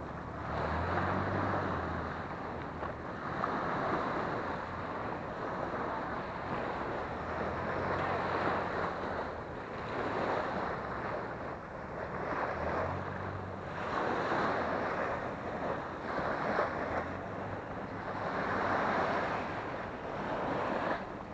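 Small waves breaking and washing up a sandy beach, the surf surging every few seconds.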